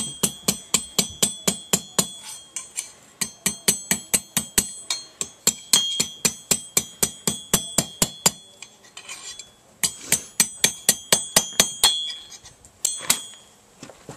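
Blacksmith's hammer striking hot steel on an anvil in quick runs of blows, about three a second, each blow with a bright ringing note. The runs break off for a moment about two-thirds of the way through and again near the end.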